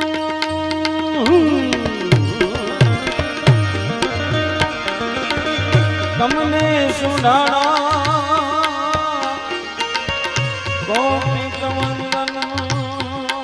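Indian devotional folk music: a harmonium holds a steady chord, then about a second in a man's voice enters with a long, gliding, wavering melodic line, over a steady tabla rhythm.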